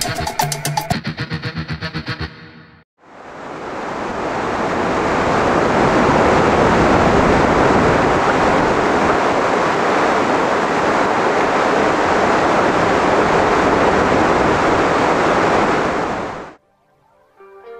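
Flood-stage creek water rushing out of concrete culverts: a loud, steady rush that fades in about three seconds in and cuts off abruptly near the end. Pulsing guitar music plays briefly at the start.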